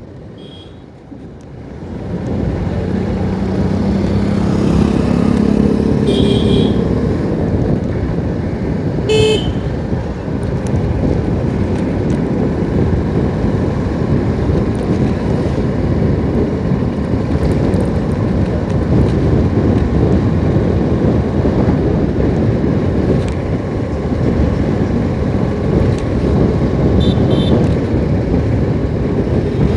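Motorcycle ride noise: the engine running with wind and road noise on the rider's camera, swelling about two seconds in as the bike picks up speed. A few short vehicle horn toots sound over it, around a quarter of the way in and again near the end.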